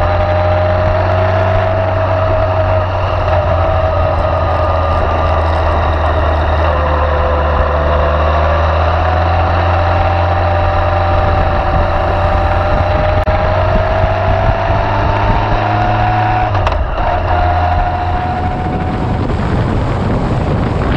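Motorcycle engine running steadily at road speed, its pitch drifting gently up and down with the throttle. About three-quarters of the way in the sound changes abruptly, and wind rushing over the microphone takes over.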